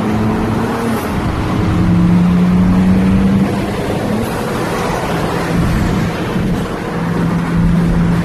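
BMW 335i's turbocharged 3.0-litre straight-six running: a steady drone whose pitch drops about a second in, rises briefly around four seconds, then settles lower.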